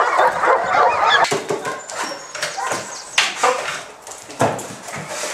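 A working shepherd dog's excited high-pitched yelps and whines, cut off abruptly about a second in. After that come scattered knocks and bumps as a dog noses through wooden cabinets and drawers.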